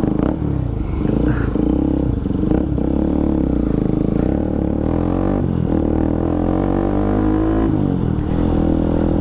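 Bajaj Pulsar RS200's single-cylinder engine running under way, its pitch rising and falling with the throttle and dipping twice, about halfway through and near the end.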